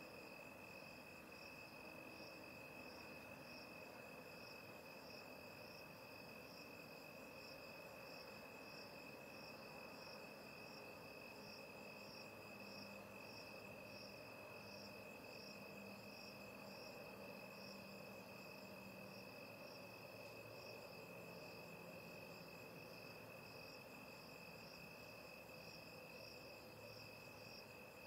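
Faint night insects, most likely crickets, calling: one steady high trill with a second, higher chirp pulsing at an even rate.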